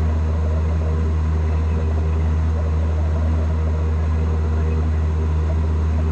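Cessna 172 Skyhawk's piston engine and propeller droning steadily in cruise, heard from inside the cockpit: a low, even hum with a hiss over it that does not change.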